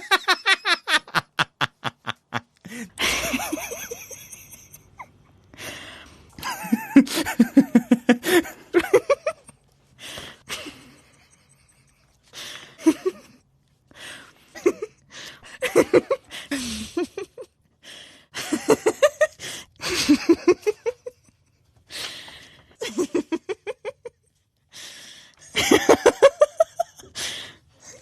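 People laughing and giggling in a series of separate bouts, each a run of quick rhythmic "ha-ha" pulses, with short pauses between them.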